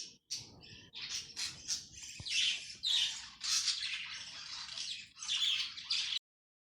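Budgerigar chattering with a string of raspy squawks and chirps, which cuts off abruptly about six seconds in.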